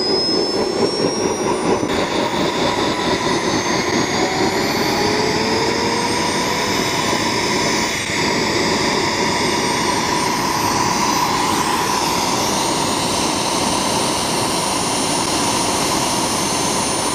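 Homemade turboshaft gas-turbine engine running steadily: a loud jet rush with several high whistling tones that drift slowly upward.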